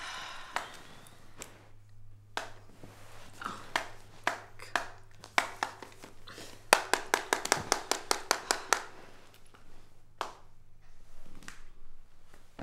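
Sharp clicks and taps from a TV remote control being jabbed and knocked about: scattered at first, then a fast run of about five a second for two seconds, the remote not working.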